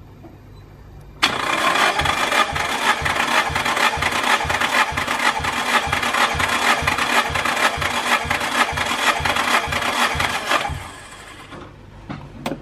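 Nissan SR20DET four-cylinder engine cranking on its starter motor for a compression test, with fuel and ignition cut so it turns over without firing. It makes an even, rhythmic chug for about nine and a half seconds, starting about a second in and stopping near the end. The cylinder under test builds to about 8 bar, lower than the expected minimum of about 9 but even across the cylinders.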